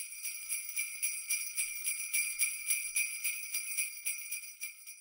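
Jingle bells shaken in a steady rhythm, about four shakes a second, fading out near the end.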